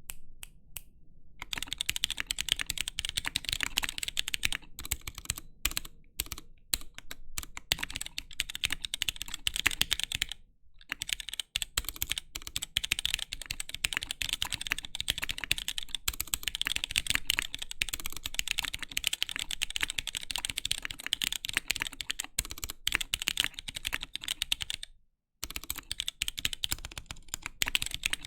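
Fast typing on a mechanical keyboard fitted with stock Gateron Clear linear switches: a dense, continuous run of key clacks, broken by short pauses about ten seconds in and near the end.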